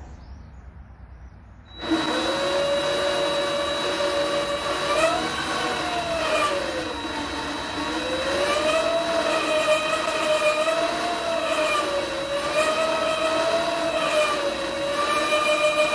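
Vevor 8x14 mini lathe's brushed DC motor starting up about two seconds in and running with a high-pitched scream over a steady electronic whistle, the whine rising and falling in pitch as the spindle speed is turned up and down. The owner takes the screaming for a sign the motor is already on its way out.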